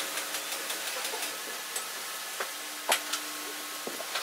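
A wooden rotating tool-organizer tower being turned by hand: a few light wooden knocks and clicks over a steady hiss, the loudest knock about three seconds in.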